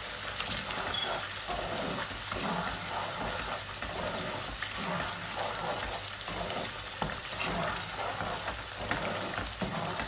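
Thick curry gravy sizzling in a nonstick pan while a plastic slotted spatula stirs it, with repeated scraping strokes. The spiced tomato masala is being cooked down until it turns reddish.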